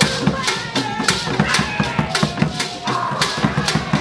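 Live traditional Akan drum ensemble: barrel and shoulder-slung drums struck with sticks and hands in a steady driving rhythm of about four strokes a second, with a gourd rattle shaking and voices calling over it.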